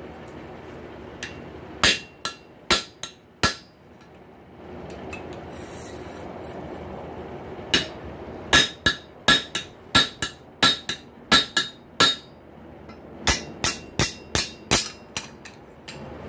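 Hammer blows driving a square punch into a hot rail spike on an anvil, each strike ringing metallically. The blows come in three runs of about two to three a second, with a short pause after the first few.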